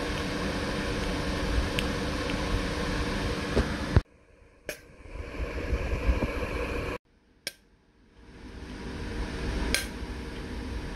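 Hum and hiss of a high-voltage capacitor-charging circuit, broken by sharp snaps as a deuterium thyratron fires and dumps the capacitor bank through the load. The snaps come about every three seconds, and after each one the hum builds up again as the capacitor recharges.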